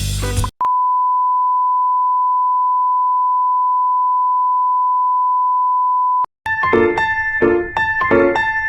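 A steady, high electronic beep tone held unchanged for about six seconds, then keyboard piano music begins.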